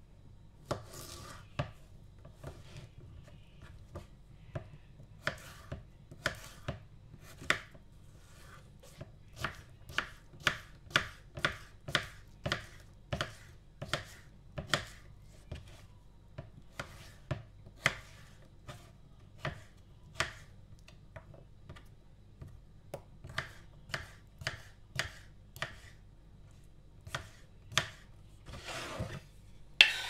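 Kitchen knife chopping a cucumber on a wooden cutting board: a long run of sharp, crisp chops, about two or three a second, broken by a few short pauses. Near the end comes a longer scraping sound of the cut pieces against the board.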